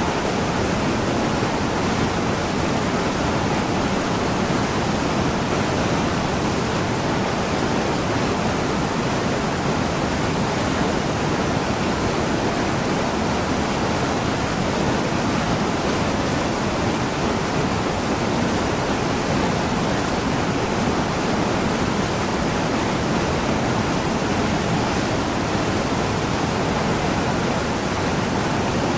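Small waterfall and mountain stream rushing steadily over boulders.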